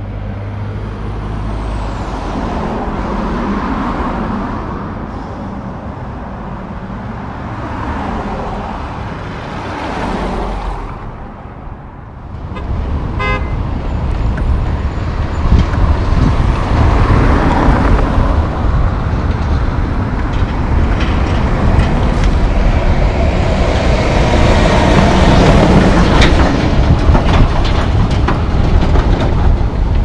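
Diesel engine of a concrete mixer truck running, its sound swelling and easing, then heavier road traffic with cars and trucks passing. A brief horn toot sounds about 13 seconds in.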